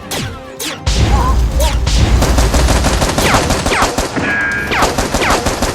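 Rapid automatic gunfire, volley after volley of shots, with several high falling whistles among them, over background music with a heavy bass beat at the start. These are gunfire sound effects laid over a staged Nerf blaster battle.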